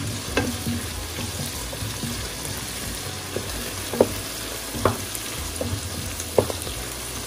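Sliced onions, green chillies and curry leaves sizzling steadily in hot oil. A wooden spatula stirs them, with a few sharp taps against the pan about four and five seconds in and again near the end.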